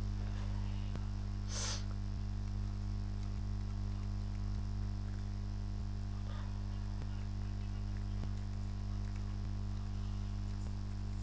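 Steady low electrical hum, with faint ticks about once a second and a brief hiss about one and a half seconds in.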